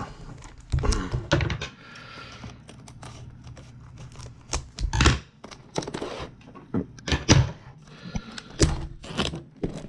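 Handling noises from a cardboard trading-card box being turned over and its plastic shrink-wrap cut with scissors: a scattered run of light clicks, taps and thunks, a few of them sharper.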